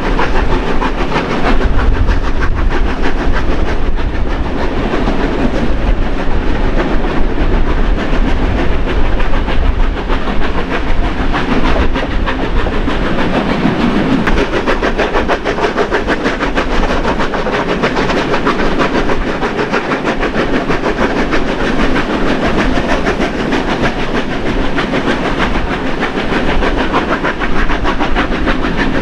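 Two steam locomotives, New South Wales 30 class 3016 and 36 class 3642, working their train uphill with a steady run of exhaust beats, mixed with the clatter of the carriage wheels on the rails, heard from an open carriage window behind them.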